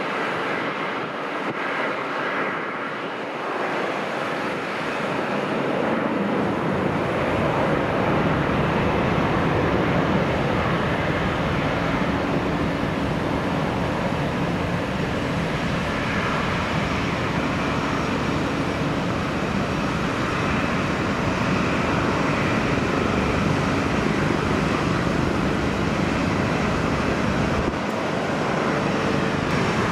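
Jet airliner engines during a landing. The noise swells over the first several seconds, then holds loud and steady with a faint whine in it.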